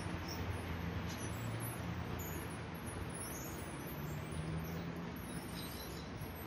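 Steady low rumble of outdoor city ambience, typical of distant traffic, with a few faint high chirps near the end.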